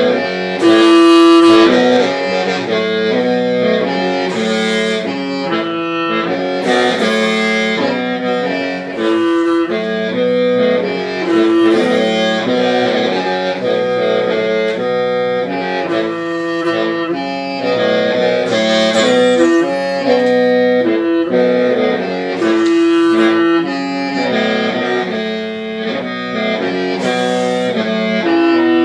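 Hmong qeej, a free-reed bamboo mouth organ, playing a melody of several reed tones sounding together over a steady low drone, with short breathy bursts now and then.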